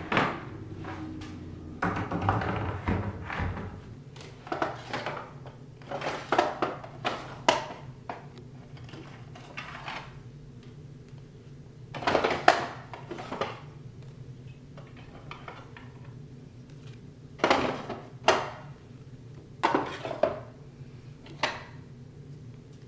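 Order-packing sounds at a work table: items being handled and set down, with irregular light knocks and clatters and a spell of rustling near the start, over a low steady hum.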